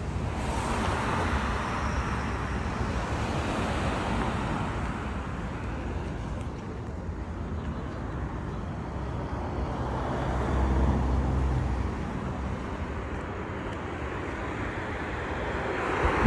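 Steady outdoor street noise from traffic at night, with a low engine rumble swelling for a couple of seconds about two-thirds of the way through, and a low thump of wind or handling on the phone's microphone at the very end.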